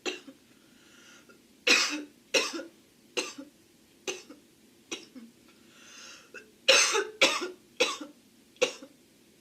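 A girl coughing over and over, about ten separate coughs in two runs, with a short intake of breath between the runs.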